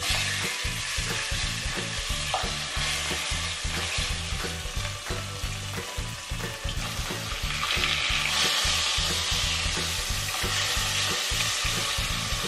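Fish steaks shallow-frying in hot mustard oil, sizzling steadily, growing louder past the middle.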